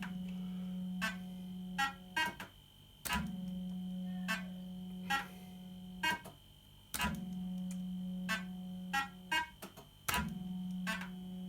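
1980s JPM Nudge Double Up fruit machine playing several games in a row. Each game is a steady hum lasting about three seconds, with sharp clicks and clunks around it as the reels start and stop.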